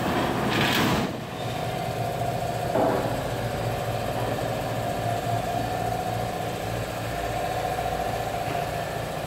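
Air duct production line machinery running with a steady hum. A brief rushing noise comes about a second in, with a smaller clatter near three seconds.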